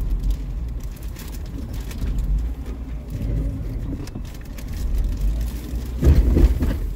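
Jeep Wrangler driving over rough off-road terrain, heard from inside the cab: a low engine rumble with scattered clicks and knocks. The rumble swells into a louder surge for about a second near the end.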